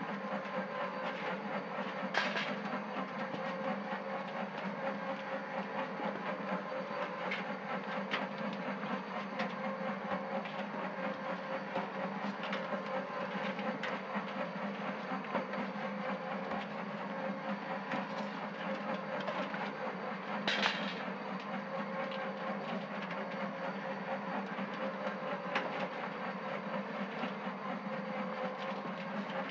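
Homemade trommel soil sifter running: a 12-volt DC motor directly turning the barrel drum, with a steady hum and the continuous rattle of soil and rocks tumbling in the screen. Two sharper knocks stand out, about two seconds in and about twenty seconds in.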